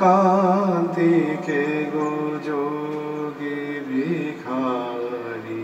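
A man singing a wordless melody in a few long held notes with vibrato, in a chant-like devotional style.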